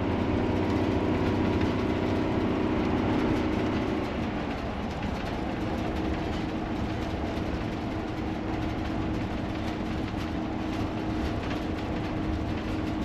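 Motorhome cruising on the highway, heard from inside the cab: steady road and drivetrain noise with a constant hum that drops out briefly about four seconds in and then returns.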